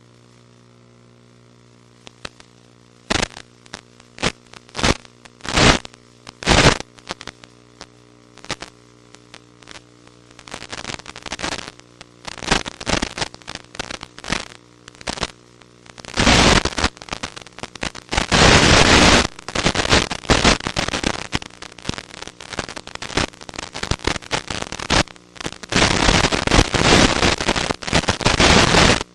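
Radio static from an FPV video receiver's audio channel: sharp crackles and pops over a steady low hum. From about halfway the crackles become near-continuous loud hiss.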